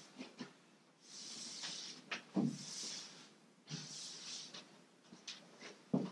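Cloth wiping over a sanded cedar-strip kayak hull, a series of soft swishing strokes each lasting under a second, with a few low knocks in between.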